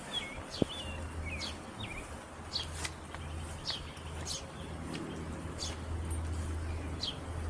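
Birds chirping: a series of short, quickly falling high calls, about one every half second to second, over a steady low hum.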